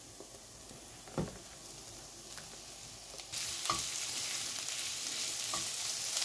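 Sliced chorizo frying with chopped onion in a pan, stirred with a plastic spatula. A sharp knock comes about a second in. About three seconds in the sizzling gets suddenly louder and stays so, with a few short spatula knocks against the pan.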